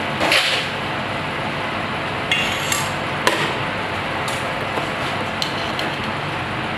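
A metal spoon clicking and clinking against small stainless steel saucepans and a porcelain plate during plating: about half a dozen light knocks over a steady background hiss.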